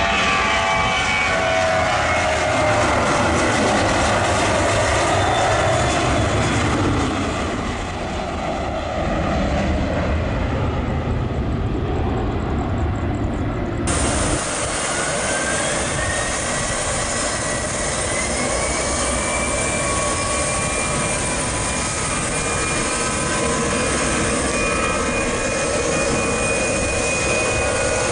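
Jet airliner engines running on the runway, with a whine that falls in pitch over the first several seconds. After an abrupt cut about halfway through, a new whine rises in pitch and then holds steady as engines spool up.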